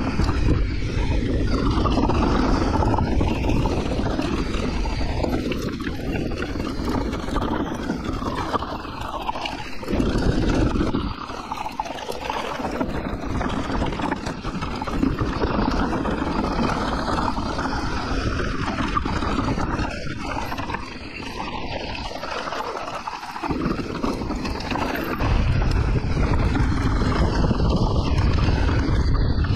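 Trail-riding noise from a Santa Cruz Nomad mountain bike: wind buffeting the camera microphone in a low, rumbling rush, with tyre and trail noise underneath. The rumble is heaviest at the start and again in the last few seconds.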